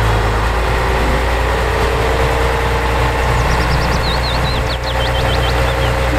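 Heavy wrecker tow truck's engine idling steadily, with short high chirps over it in the second half.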